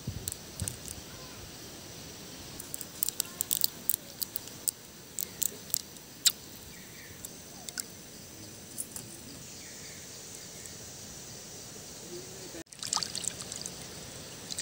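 Green peppercorns being stripped from their stalks into a clay bowl of water, making scattered small sharp clicks and plinks. Near the end a hand squeezes and swishes peppercorns and garlic in the water, with denser splashing.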